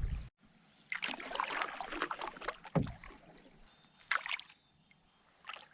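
Canoe paddle strokes swishing and dripping in lake water, a few irregular strokes, with one short low thump near the middle, like the paddle knocking the hull.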